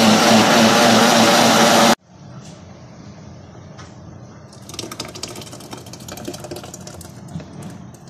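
Electric food chopper's motor running at full speed, grinding chopped tomatoes into paste; it stops abruptly about two seconds in. Then quieter clicks and knocks as the thick puree is tipped from the chopper bowl into a plastic jar.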